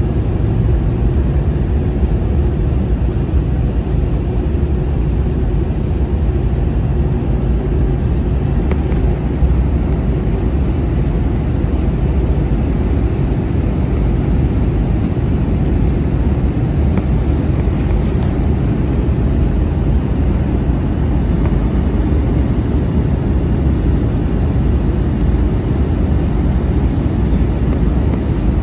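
Airbus A320 cabin noise on descent: a steady low rumble of engines and airflow heard inside the cabin, holding an even level throughout.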